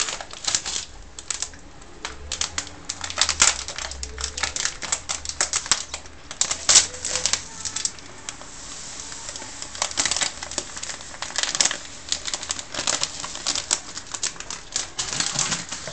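Plastic bag of semolina crinkling in rapid crackles as it is handled, with fine semolina pouring as a soft hiss into a wooden bowl about halfway through.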